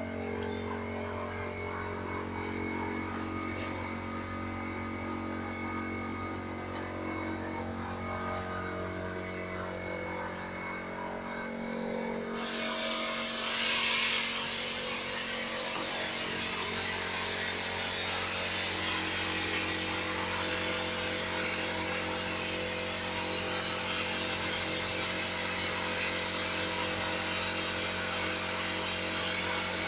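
A steady machine hum, then about 12 seconds in a sandblasting nozzle opens up with a loud, continuous hiss of compressed air and abrasive. The blast is etching designs into a panel through its printed masking.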